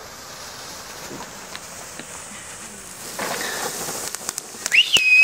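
Small ground fountain fireworks hissing steadily as they spray sparks. Near the end comes a shrill rising whistle, the loudest sound, with the first sharp crackles around it.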